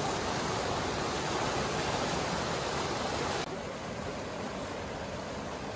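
Water rushing out of outlet pipes at the base of a dam and churning into the river below: a steady rushing noise that drops suddenly in level about three and a half seconds in.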